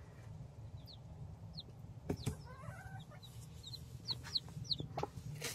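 Day-old silkie chicks peeping: short, high, downward-sliding peeps, several a second, with a few soft clicks and a steady low hum underneath.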